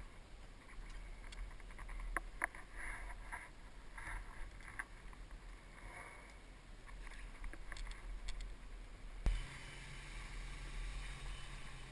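Low wind rumble on a helmet-mounted camera microphone, with scattered small clicks and rustles of handling. A thump comes about nine seconds in, after which a faint steady hum sets in.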